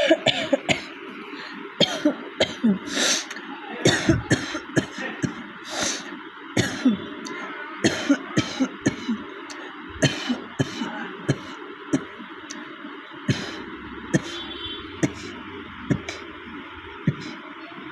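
A woman coughing over and over, many short coughs at irregular intervals. It is a real cough from a head cold.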